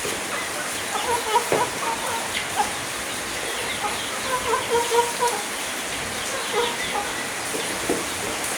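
Chickens clucking at feeding time: several short clucks in two bunches, about a second in and again around the middle, with a few sharp clicks over a steady background hiss.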